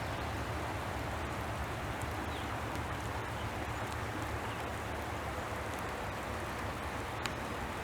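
Steady rain falling, an even hiss with a few sharp drop ticks, one standing out near the end.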